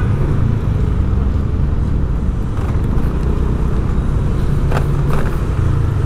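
Motor vehicle running on the road: a steady low engine and road rumble.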